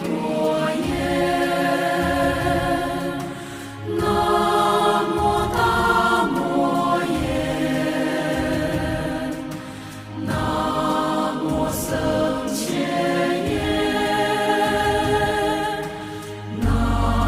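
Background music of voices chanting together, holding long notes in phrases of several seconds with short breaths between them.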